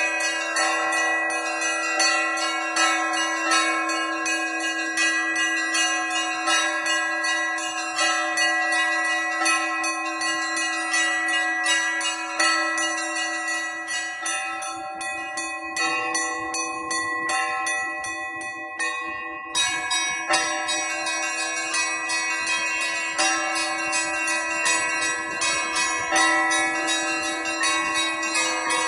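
Church bells in a bell tower rung by one ringer in the Russian Easter manner: a continuous rhythmic peal of struck bells over a steady low hum. About two-thirds through the higher bells pause for a few seconds, then come back in with a strike.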